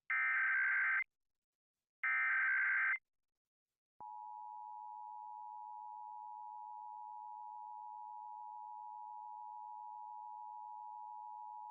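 Emergency Alert System SAME data header: two one-second bursts of rapid warbling data tones, about a second apart, which carry the coded alert. About a second after the second burst, the quieter EAS attention signal begins: a steady two-tone 853/960 Hz tone that holds without a break.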